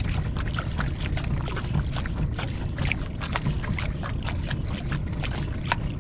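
Water lapping and splashing in small irregular slaps against a small boat's hull, over a steady low rumble.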